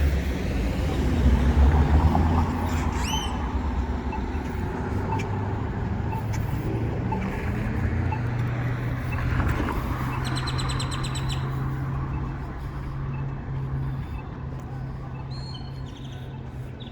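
Street traffic at an intersection: car engines rumbling past, loudest a second or two in, then a steady engine hum. Birds chirp over it, with a short chirp about three seconds in and a quick high trill near the middle.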